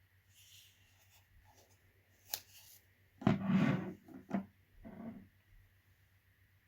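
Packaging being handled during unboxing: some light rustling, a sharp click a little past two seconds in, then three short scraping rubs, the first of them the loudest.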